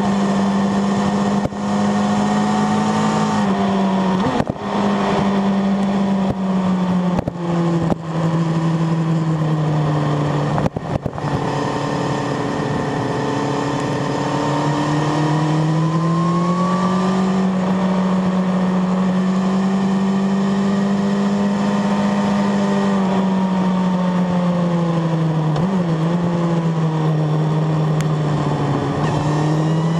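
Sport motorcycle engine at speed, heard from on board with wind rushing past: the engine note drops in steps with several brief throttle cuts in the first ten seconds or so, then climbs and holds steady, dips once, and rises again near the end.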